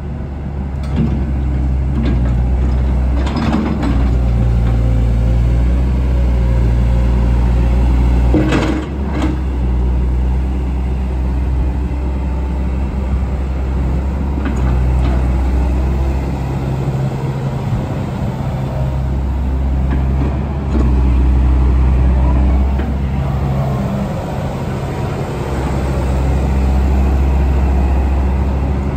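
The diesel engine of a 2002 JCB JS130 tracked excavator running, its low steady hum swelling and dipping as the hydraulics move the boom and bucket, with a couple of short knocks about three and nine seconds in.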